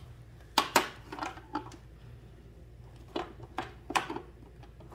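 Hard plastic parts of a Barbie airplane playset clacking and knocking together as they are handled and pushed into place: two sharp knocks just under a second in, a few lighter clicks, then three more knocks about three to four seconds in.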